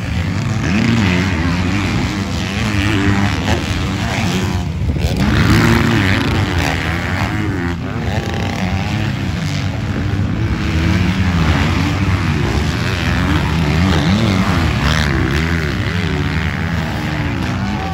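Several motocross bikes racing on a dirt track, their engines revving up and dropping back again and again as riders accelerate, shift and corner, with one bike passing close by and others running farther off.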